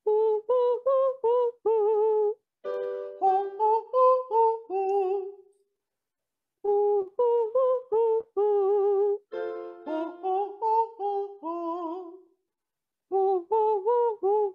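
Female voice singing a vocal warm-up exercise in short, detached notes. It comes in three runs, and between them digital piano notes play the pattern to be sung.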